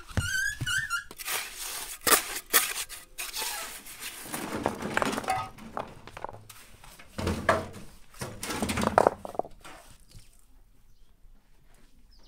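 Stones and wet mortar being worked by hand while building a stone stove: a run of irregular knocks, clatters and scrapes that stops about ten seconds in. A short, wavering high squeak comes right at the start.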